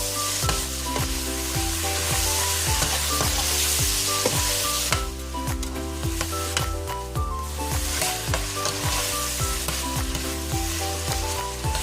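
Garlic, tomatoes, ginger and bell peppers sizzling in rendered pork bacon fat as they are stirred in the pot. The sizzle thins briefly about five seconds in and then comes back. Background music with a steady bass line plays underneath.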